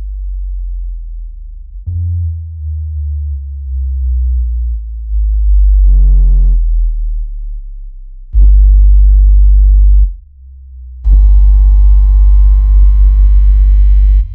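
Synthesized water-ejection tone track: very deep bass tones shifting pitch in steps, with a short buzzy tone about six seconds in. Then two loud, deep buzzy stretches with higher overtones over the bass, one about a second and a half long and a longer one near the end that cuts off abruptly; the mix of deep tones with higher pitches is meant to vibrate earbud speakers and push water out.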